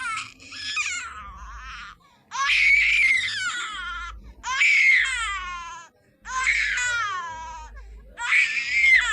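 Baby crying sound effect: short choppy sobs, then four long high-pitched wails about every two seconds, each sliding down in pitch with a brief catch of breath between.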